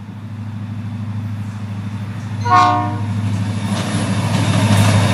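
Florida East Coast freight train approaching behind diesel locomotive 709, its engine rumble and rail noise growing louder. One short horn blast sounds about two and a half seconds in.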